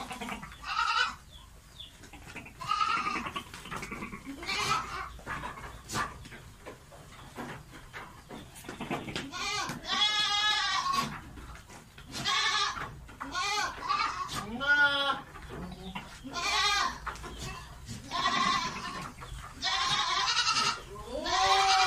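Goats bleating over and over, about ten calls, some long and wavering: the calls of goats in heat during mating.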